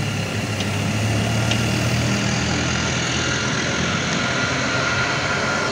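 Siemens Mireo (DB class 463) electric multiple unit approaching on the line, its traction equipment and wheels making a steady low hum, with a few faint ticks.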